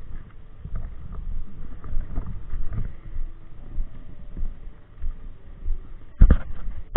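Uneven low rumble of wind and handling noise on a body-worn action camera's microphone while a spinning rod is worked, with a loud sharp knock of the camera or rod being handled near the end.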